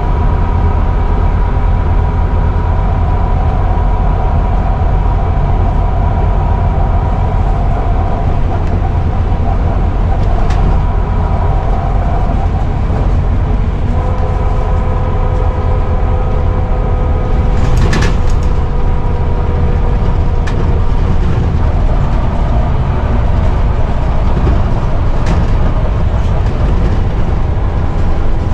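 Scania Omnicity (CN230UB) bus at road speed, heard from the saloon: a low running rumble with a steady whine from the knackered rear differential, joined about halfway by a second, lower whine that sags slightly in pitch. A brief sharp knock or rattle about two-thirds of the way in.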